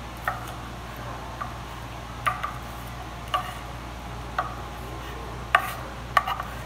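Chef's knife chopping soft grilled mango on a wooden cutting board: irregular sharp knocks of the blade on the wood, roughly one a second, closer together and louder near the end.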